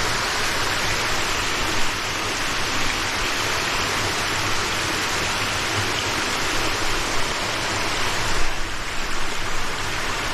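Loud, steady rush of a mountain stream's water.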